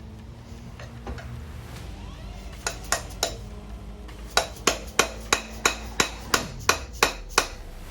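Hammer striking metal: tapping a 10 mm Allen bit into a grinding-compound-packed bolt head to seat it before loosening, so the bolt won't round out. Sharp strikes: three, then a steady run of about ten at roughly three a second.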